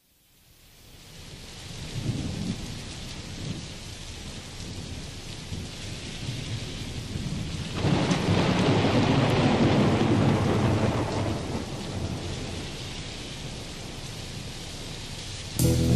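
Recorded rain and rolling thunder opening a rock song, fading in over the first couple of seconds under a steady rain hiss. A short rumble of thunder comes about two seconds in and a longer, louder one at about eight seconds. The band's bass and drums come in right at the end.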